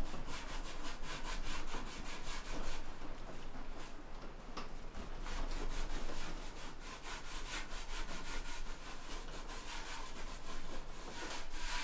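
A pad rubbing over a steel stovepipe by hand in rapid, repeated back-and-forth strokes, a steady scrubbing rasp.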